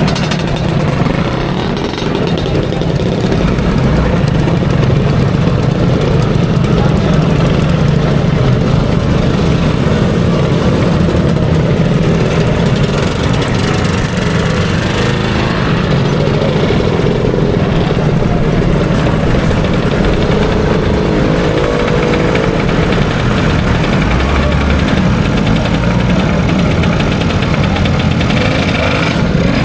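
Motor scooter engines running and idling: a loud, steady engine sound.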